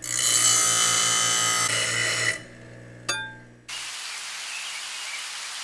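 Power grinder grinding a hand-forged steel axe head: a steady whine over a pulsing hum that stops about two seconds in. A single metallic clink rings out about a second later, and then a steady hiss takes over.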